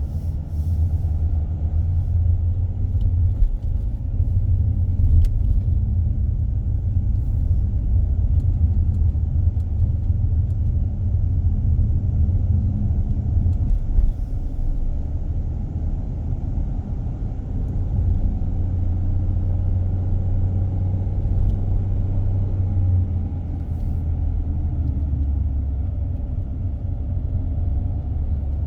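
A car driving on a road, with a steady low rumble of tyres and engine and a few faint clicks.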